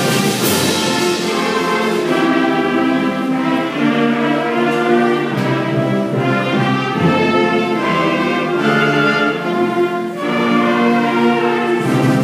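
School band playing a piece: full sustained chords that change every second or so, with a bright crash about half a second in.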